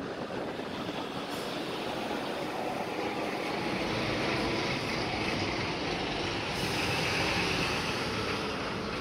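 Road traffic: cars and buses passing on the street, a steady hiss of tyres and engines that grows a little louder in the middle and eases again.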